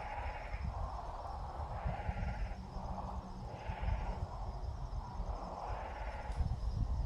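Nestling birds giving raspy, hissing begging calls, repeated roughly once a second and alternating between a lower and a higher rasp, over a low rumble.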